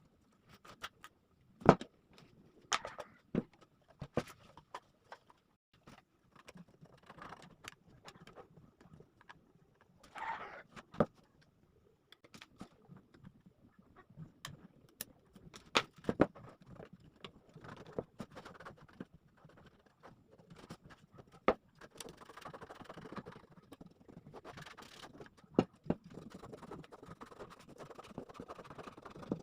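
Scattered taps, knocks and clicks of hand work on workpieces, with a sharp knock about two seconds in, and steadier scraping and rustling from about two-thirds of the way through.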